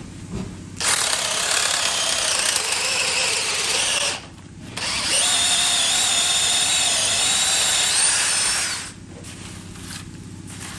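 DeWalt DCD709 20V Atomic brushless hammer drill, in drill mode, boring a spiral auger bit into stacked pine lumber. The motor whines steadily under load in two runs of about three and four seconds, with a short pause between them. Its pitch rises briefly near the end of the second run.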